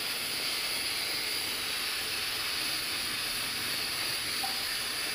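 Chicken pieces frying in an aluminium pot, a steady, even sizzle.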